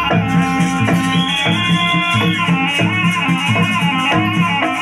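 Loud Javanese jaranan trance-dance music: a pitched melody with long held high notes over a repeating low percussive beat about twice a second, with rattling.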